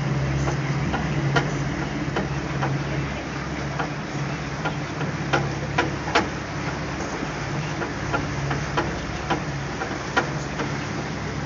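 Tour boat's engine running with a steady low hum while the boat cruises, with irregular sharp clicks over it.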